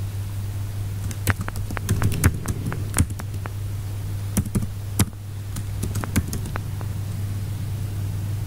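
Typing on a computer keyboard: irregular key clicks starting about a second in and stopping about two-thirds of the way through, over a steady low hum.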